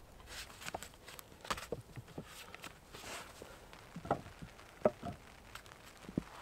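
Wooden logs knocking as they are laid onto a log chair frame, a scatter of short sharp knocks, the loudest about four, five and six seconds in, with rustling and footsteps on the forest floor between them.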